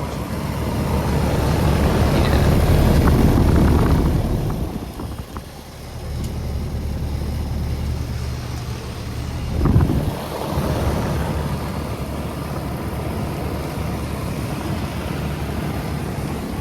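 Outdoor heat pump units running: a steady low compressor hum under fan noise. A louder rushing swell builds and fades over the first four seconds, and there is a short loud burst about ten seconds in.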